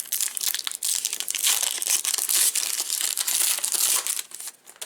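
Plastic wrapper of a baseball card pack crinkling as it is torn open and handled, a dense crackle full of sharp clicks that dies away about four seconds in.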